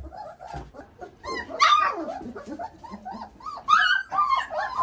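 Three-week-old Mioritic shepherd puppies whimpering and yipping at feeding time, a rapid string of short rising-and-falling cries, with two louder yelps about one and a half and three and a half seconds in.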